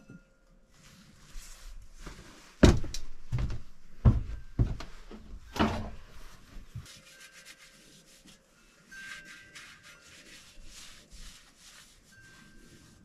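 Five heavy thumps, roughly evenly spaced about two-thirds of a second apart, followed by faint rustling.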